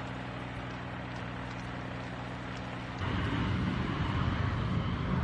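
A steady engine hum under a noisy hiss. About three seconds in it gives way to a louder, dense rumble of a wildfire burning through trees, with wind.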